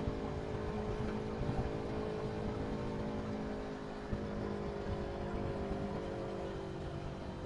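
Motorcycle engine running steadily while riding, over a low rumble of road noise; the engine note rises slightly near the end.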